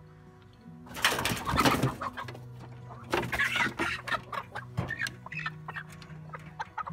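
Chickens squawking and clucking, with a loud ragged burst about a second in and another loud squawk about three seconds in, then shorter clucks.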